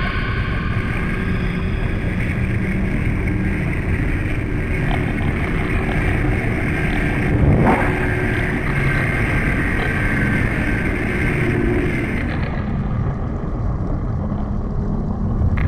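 Underwater soundscape playing from the installation's surround speakers: a steady low rumble with hiss, with a short swell about seven and a half seconds in.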